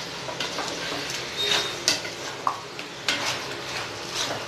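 A ladle stirring chicken in thick masala gravy in a large aluminium pot, with irregular scrapes and knocks against the pot over a low frying sizzle: the chicken is being sautéed in the gravy.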